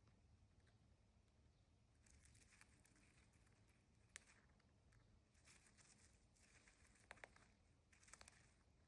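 Cockatiel pecking and husking seeds from a millet spray: faint, irregular crackling and clicking in short bursts, with one sharper click about four seconds in.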